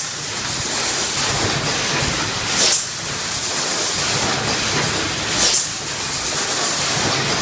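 KEENPRO EM08S1 eight-cavity PET stretch blow molding machine running in production: steady machine noise broken twice by a short, loud hiss of compressed air about every three seconds, the exhaust of each blow cycle.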